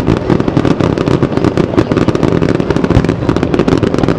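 Fireworks display: a dense, unbroken barrage of rapid pops and bangs, many a second.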